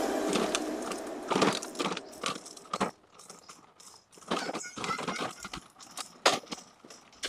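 Background music fades out in the first second, then a few scattered scuffs and light clicks of children's sandals and flip-flops on a concrete road.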